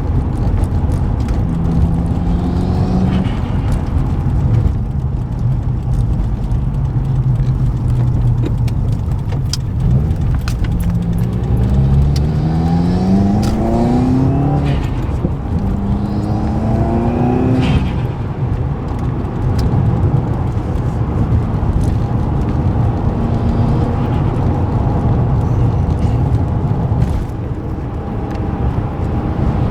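Subaru WRX's turbocharged flat-four engine running under way, rising in pitch through two pulls around the middle with a break between them, like accelerating through a gear change.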